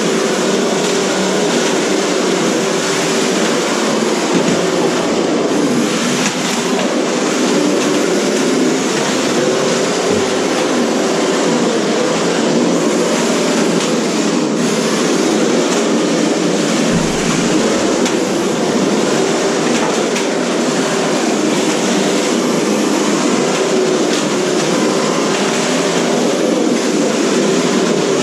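A steady mechanical din from several 1/10-scale RC cars driving and ramming in a demolition derby: motors, gears and tyres running together, with a few faint knocks.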